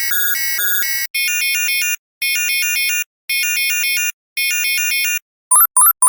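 Synthesized sci-fi alarm sound effects. A dense, rapidly trilling electronic alarm stops about a second in, followed by another that sounds four times in pulses just under a second long, each a fast run of stepped electronic tones; near the end a third alarm starts with short, sharp beeps.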